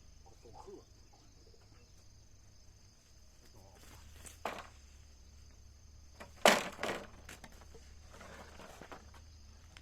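A few knocks, like things being set down or struck during building work: one about four and a half seconds in, then the loudest about six and a half seconds in with a second close behind it.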